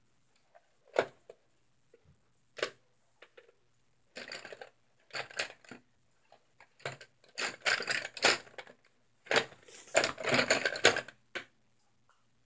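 Two sharp clicks in the first few seconds, then a series of short, scratchy rubbing strokes of a white marker worked over the painted canvas.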